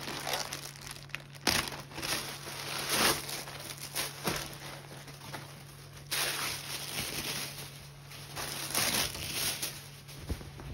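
Clear plastic garment bag crinkling as it is opened and the folded pants are pulled out, then a thin plastic sheet rustling as it is peeled off, in irregular crackly bursts.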